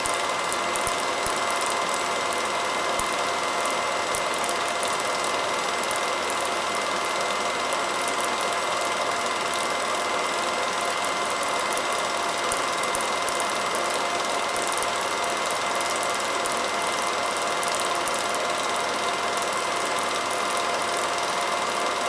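Home-movie film projector running: a steady mechanical whir and fine clatter, unchanging throughout.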